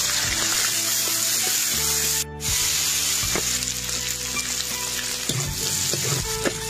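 Loud sizzling as raw chicken pieces hit hot oil in a wok and are stir-fried with a metal spatula. The sizzle breaks off briefly about two seconds in.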